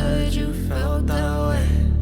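Background pop music: a melody line over a steady low bass, the bass note changing about a third of the way in.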